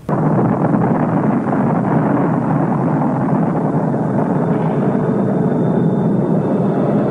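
Sustained roar of a nuclear test explosion on an archival Soviet film soundtrack: a loud, dense, low noise that cuts in abruptly and holds steady.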